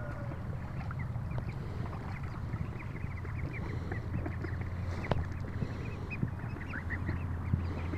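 Young Welsh Harlequin ducklings and Embden goslings peeping as they swim, a quick run of many short, high peeps over a steady low rumble, with one sharp click about five seconds in.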